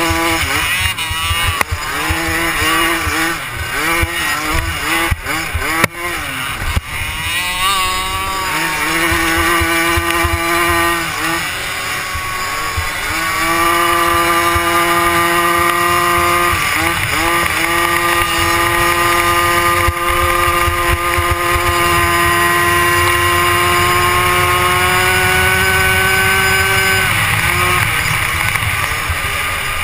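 Youth 90 cc ATV engine heard from the rider's helmet, its pitch rising and falling over and over for the first dozen seconds, then held at one steady high pitch for about fifteen seconds before easing off near the end. Wind rumbles on the microphone throughout.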